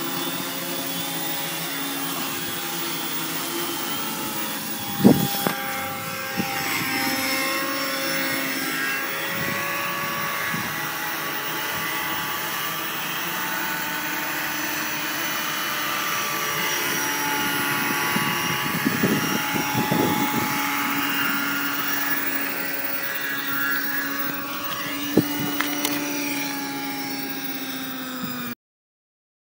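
Quadcopter's four Peak 2212 brushless motors and propellers whirring, several tones drifting up and down in pitch, with a sharp knock about five seconds in and another near the end. The sound cuts off abruptly just before the end.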